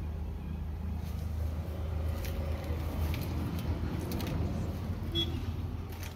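Crawler harvester's engine idling steadily, a low hum, with scattered light clicks and taps.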